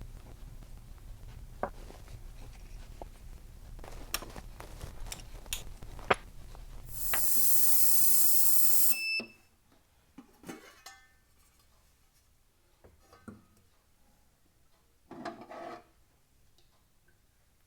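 Small metal carburetor parts clicking and clinking as they are handled, then a loud rushing hiss for about two seconds that cuts off suddenly, followed at once by a short electronic beep.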